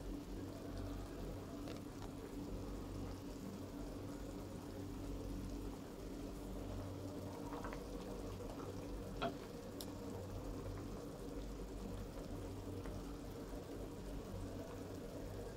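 Chicken tinola with bottle gourd simmering in a pan on a gas burner: the broth bubbles softly and steadily, with a few faint clicks, over a low steady hum.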